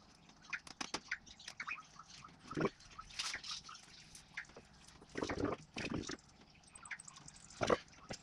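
Adhesive pinstripe tape being peeled off its backing strip and pressed along a car's sill by hand: scattered soft clicks and crackles, with a few short rustles.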